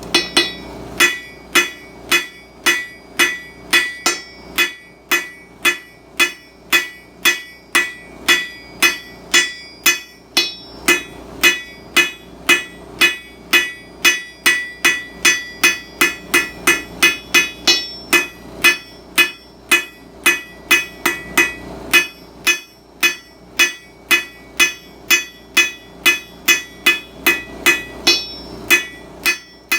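Hand hammer striking hot steel bar on an anvil: a steady run of ringing blows about two a second, with a short break about two-thirds of the way through.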